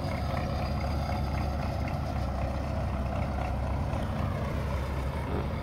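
Diesel farm tractor engine running steadily at low revs, a low, even drone.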